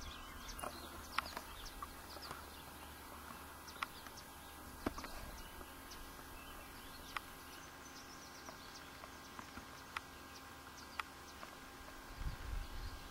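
Faint outdoor ambience with scattered short clicks and a few brief chirps, and a low rumble near the end.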